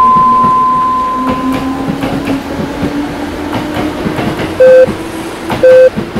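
Electronic beep tones: a long high beep fades away over the first two seconds, while a lower tone slowly rises in pitch over a crackling hiss. Near the end come three short, lower beeps about a second apart, like time-signal pips.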